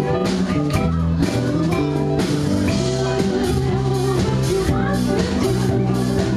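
Live band playing a song on acoustic guitar, electric guitar or bass and a drum kit, with a steady drum beat and vocals over it.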